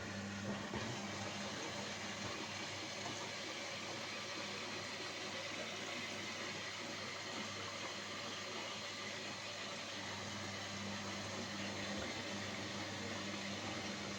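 Washing machine running: a steady motor hum with an even hiss of water and mechanism.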